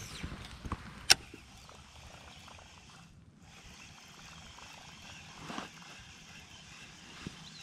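Faint handling sounds of a baitcasting rod and reel being cranked in from a kayak, with one sharp click about a second in and a soft swish near the middle.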